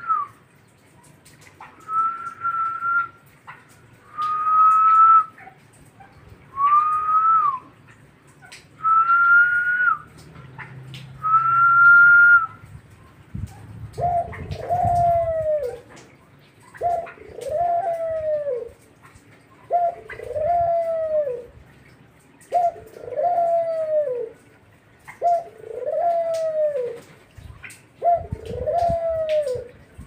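A collared dove cooing: lower, arched coos, each rising and then falling, repeated about every three seconds through the second half. Before them, in the first twelve seconds, come six high, steady whistled notes of about a second each, louder than the coos.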